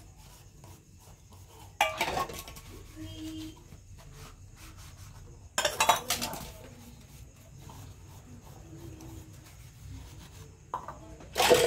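Stainless steel kitchen vessels clattering and clinking in a sink as they are handled and washed. There are three loud bursts of metal knocks, about two seconds in, about six seconds in and near the end, with quieter handling between.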